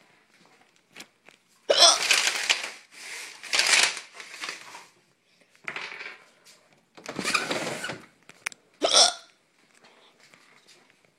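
A person hiccuping hard and repeatedly: about five loud, breathy hiccups spread over roughly eight seconds, with short quiet gaps between them.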